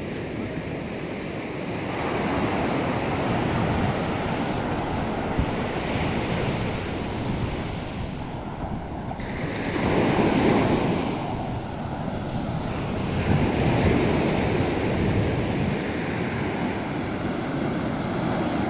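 Ocean surf breaking on a sandy beach: a continuous rush of waves that swells and falls back in several surges, loudest about halfway through and again a few seconds later, with wind buffeting the microphone.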